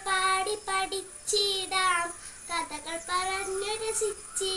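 A young girl singing a Malayalam children's poem in short, held phrases, her voice alone with no accompaniment.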